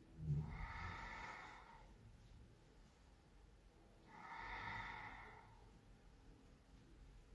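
Quiet, slow, deep breathing of a yoga practitioner: two long breaths about three and a half seconds apart, each lasting around a second and a half. A soft low thump comes just as the first breath begins.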